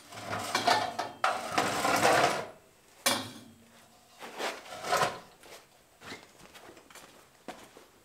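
Work table top being dragged and shifted on its sawhorses: a couple of seconds of scraping, a sharp knock about three seconds in, then scattered lighter knocks and rubbing.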